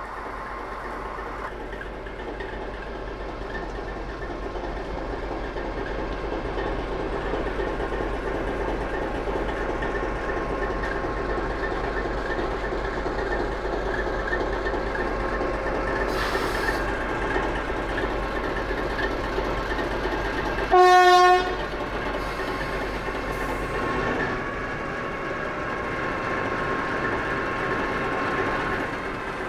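Digital sound of a Märklin H0 model Ludmilla diesel locomotive: a recorded diesel engine running steadily, growing louder over the first several seconds. About 21 seconds in there is one short, loud horn blast.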